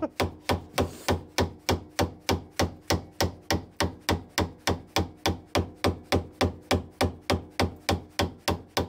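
Japanese pull saw cutting across a wooden timber in quick, even strokes, about four a second.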